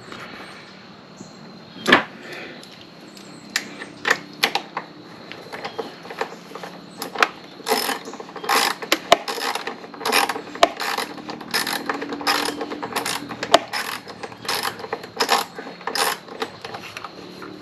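Hand tools clicking and knocking against a motorcycle's lower fairing and its fasteners, in a run of sharp clicks that comes about two or three a second in the second half.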